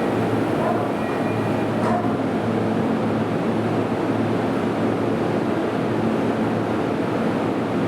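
Toei Shinjuku Line train running alongside the platform: a steady rumble of wheels and running gear with a constant low hum.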